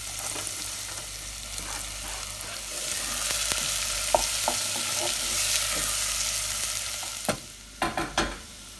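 Chopped red onions sizzling as they hit hot oil in a pot and are stirred with a wooden spoon. The sizzle drops away about seven seconds in, and a few sharp knocks follow.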